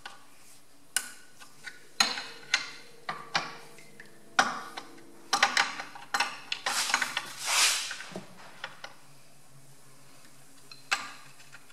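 Metal clinks and knocks of an adjustable spanner working the alternator's mounting bolt on a Perkins tractor engine, as the alternator is loosened to slacken the fan belt. A short rasping scrape comes about seven seconds in, and the clinks die away soon after.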